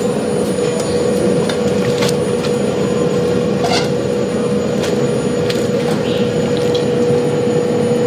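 Busy commercial noodle-kitchen noise: a steady rushing with a constant hum under it, and scattered clinks and knocks of strainers, ladles and bowls as noodles are scooped from boiling pots.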